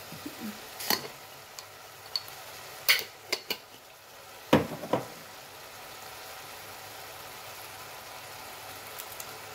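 Pot of ground meat, potato and carrot filling simmering on an electric hob with a steady low sizzle. Several sharp clicks and knocks come in the first five seconds, the loudest about four and a half seconds in.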